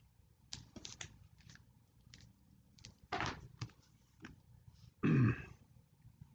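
Scattered faint clicks and knocks, then a short throaty sound from a person about five seconds in, the loudest thing heard.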